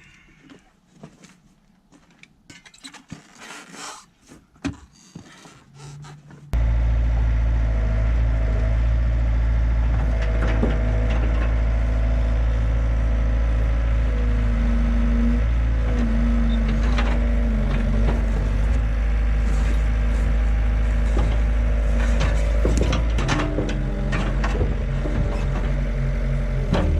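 Faint clicks and knocks, then, about six and a half seconds in, the diesel engine of a Yanmar B50-1 mini excavator comes on suddenly and runs steadily and loudly. Higher tones shift several times over the engine as the hydraulics are worked.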